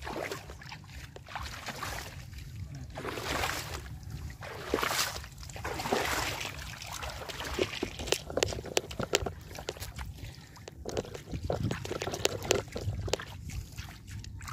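Shallow seawater sloshing and splashing while freshly gathered horn snails are washed, with a run of light clicks in the second half.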